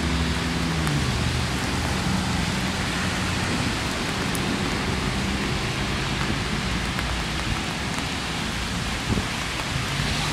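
Steady rain falling on wet paving and puddles, an even hiss throughout. A low vehicle engine hum fades out in the first second and comes back near the end.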